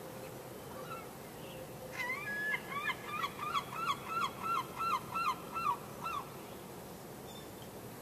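A gull calling: a run of about a dozen loud yelping notes, each rising then falling, about three a second. It starts about two seconds in and stops about six seconds in, over a steady background hiss.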